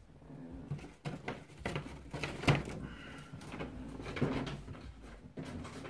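Handling noise from a cardboard takeout box: irregular rustling and light knocks, with one sharper knock about two and a half seconds in.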